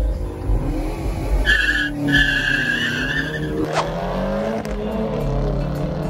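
Two cars launching side by side in a drag race, a Subaru WRX and a SEAT León Cupra: engines revving hard with tyres squealing for about two seconds, a sign of wheelspin on the slippery launch surface. The engine note then rises and drops through gear changes as the cars pull away.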